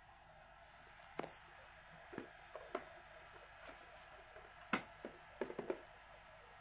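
Scattered light clicks and taps from a Shimano Saragosa SW14000XG spinning reel being handled by hand at its handle arm, with a quick cluster of clicks near the end and the sharpest tap a little before.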